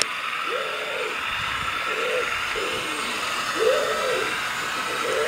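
A dove cooing: low hooting calls repeated in short phrases, over a steady faint hiss.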